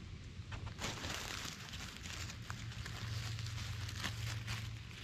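Dry leaf litter and twigs on the forest floor rustling and crackling as they are disturbed, with scattered small snaps; the rustling is thickest about a second in.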